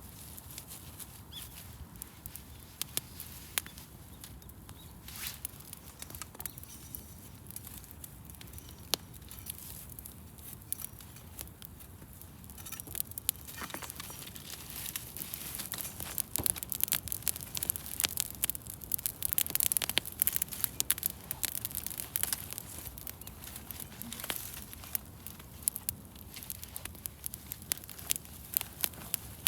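Wood campfire crackling, with many sharp pops over a soft low hiss; the pops come thicker and louder from about halfway through.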